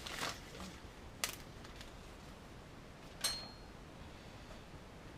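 Small fuel-pump parts handled on a workbench: light handling noise with two sharp clicks, one about a second in and one about three seconds in, the second with a short metallic ring.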